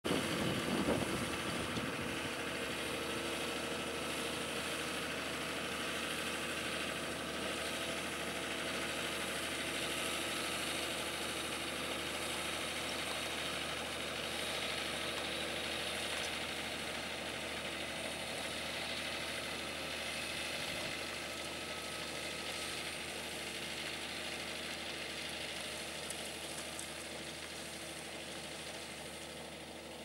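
John Deere tractor's diesel engine running steadily under load as it pulls a mouldboard plough through the soil, fading slightly near the end.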